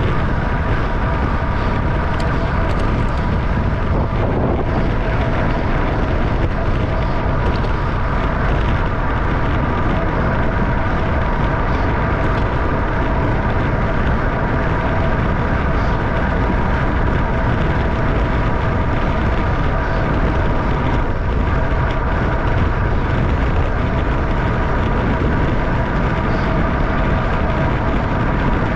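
Loud, steady wind rush on the microphone of a camera on a racing bicycle moving at about 28 mph, with a deep rumble and a constant hum of a few steady tones underneath.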